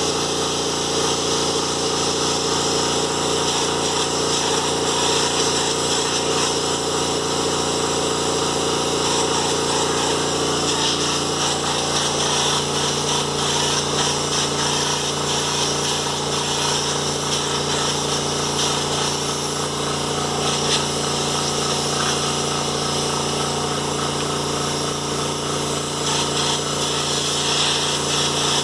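Electric air compressor running steadily, feeding the spray painting, with its hum shifting to a lower, different pitch about eleven seconds in.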